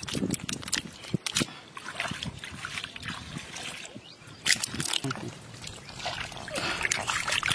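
Irregular splashes and squelches of hands groping in shallow muddy water to catch fish, with splashing as live fish wriggle in a little water in a wicker basket.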